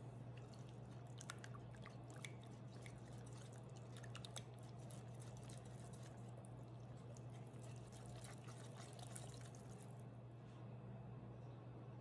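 A whisk beating cream into wet pumpkin batter in a glass bowl: faint wet sloshing with light clicks of the wires against the glass, stopping about ten seconds in. A steady low hum runs underneath.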